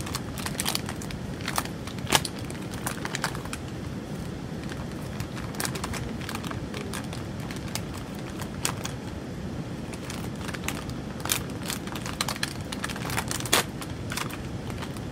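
Irregular small clicks and crackles from hands handling something, over a steady low background hum.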